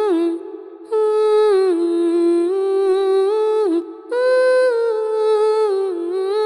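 End-credits music: a melody hummed by a voice in smooth, gliding phrases, with short breaks about half a second in and just before four seconds.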